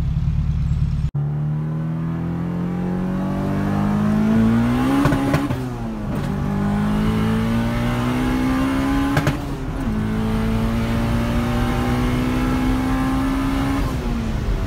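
Turbocharged Honda Civic hatchback's four-cylinder engine under hard acceleration, heard from inside the cabin: the pitch climbs, breaks at gear changes about five and nine seconds in, climbs again more slowly in the next gear, then falls away near the end as the throttle is lifted.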